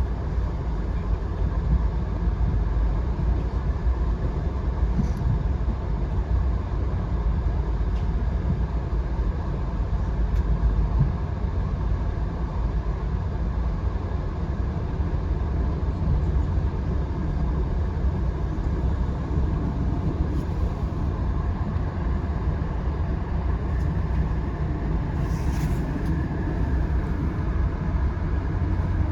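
Steady low rumble of a Via Rail passenger train rolling along, heard from inside the coach, with a few faint ticks and a brief hiss near the end.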